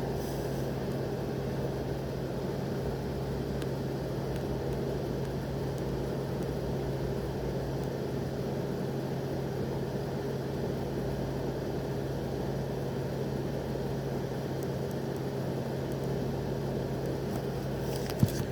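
Steady low mechanical hum under a constant even noise, with one short click near the end; no thunder is heard.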